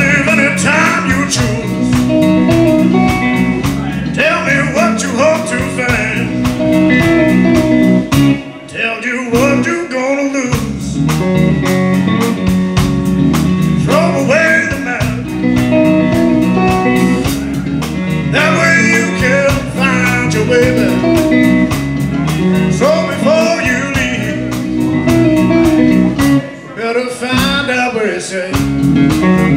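Live blues band playing: a man singing over electric guitar, with electric bass guitar and drums keeping a steady beat. The band cuts out briefly twice, about a third of the way in and near the end.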